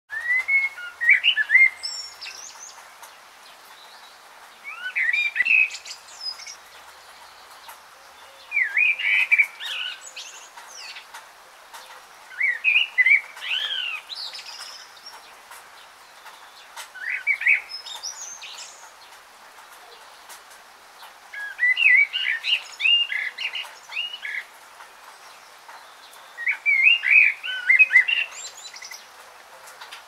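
A songbird singing short warbled phrases of quick sweeping notes, one phrase about every four seconds, over a faint steady hiss.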